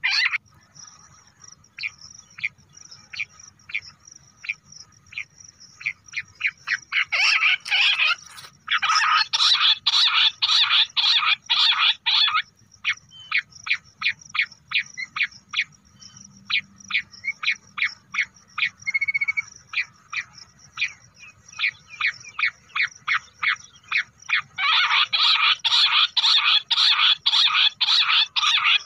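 A recording of bush quail calls played as a lure: runs of short, high chirping notes that build into dense, rapid choruses about a quarter of the way in and again near the end, with sparser single chirps between. A faint low hum lies under it.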